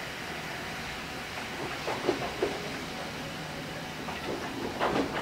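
Yoro Railway electric train rolling slowly on the approach, with a steady running rumble. Its wheels click over rail joints a few times about two seconds in, and again more loudly near the end.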